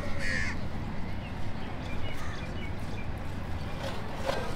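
A crow gives one harsh caw just after the start, over a steady low rumble of outdoor background noise.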